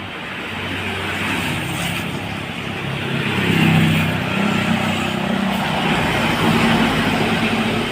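Tour bus driving past: engine and tyre noise that swells to its loudest about halfway through, then stays up as it goes by.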